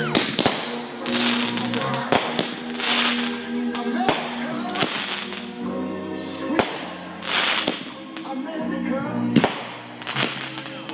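Aerial fireworks going off: repeated sharp bangs and crackling bursts, with music playing underneath.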